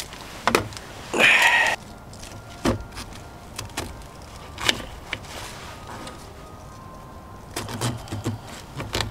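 Handling sounds from camp food prep: scattered knocks as plastic bowls are set down and a brief rustle about a second in, then a few crunches as an Opinel No. 7 folding knife cuts into a head of cabbage on a wooden board. The small blade makes heavy going of the cabbage.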